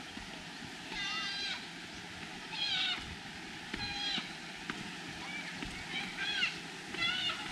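Children's high-pitched voices calling and shouting from a distance, a short call every second or two, over the steady rush of a rocky mountain stream.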